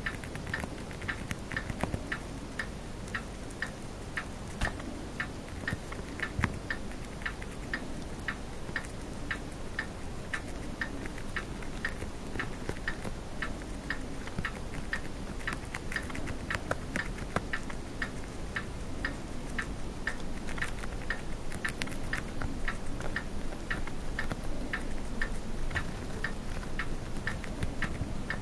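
Chinese dwarf hamster chewing a fresh green leaf: a steady run of small crisp crunches at about three a second.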